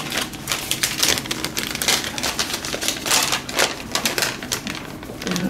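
A sheet of paper being unfolded and handled, crinkling and rustling in quick irregular crackles.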